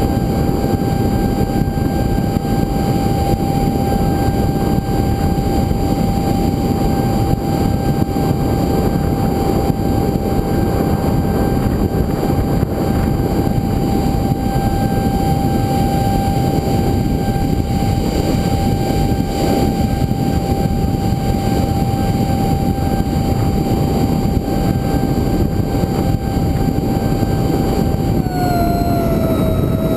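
Electric ducted fan of an FF-22 foam RC jet, heard from a camera on the airframe: a steady high whine over heavy air rush, dropping in pitch near the end as the fan slows.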